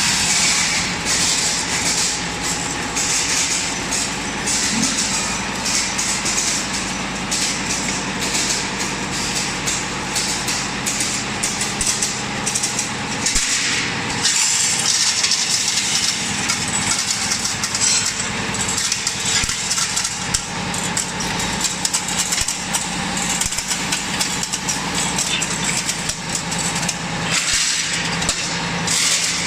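Machinery of an automatic welding-electrode packaging line running: a steady mechanical hum with dense, irregular clatter and clicking throughout.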